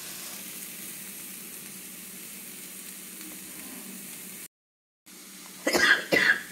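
Tomato and grated-coconut masala frying in a pan with a steady, even sizzle. The sound drops out briefly about four and a half seconds in. Near the end come two short, loud, harsh sounds about half a second apart.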